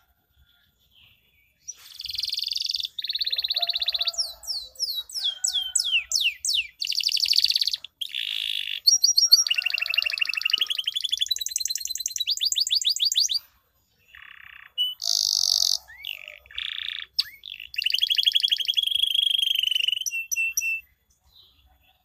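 Domestic canary singing a long, varied song of rapid rolling trills and chirps, with a run of falling whistled sweeps a few seconds in. It starts about two seconds in, pauses briefly in the middle, and stops shortly before the end.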